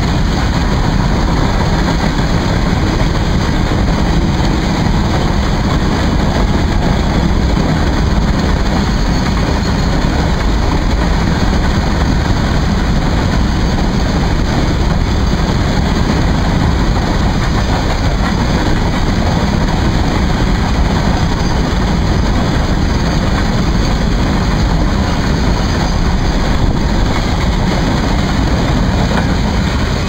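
Long freight train of covered wagons rolling past at speed: a steady, loud rumble and rattle of steel wheels on the rails.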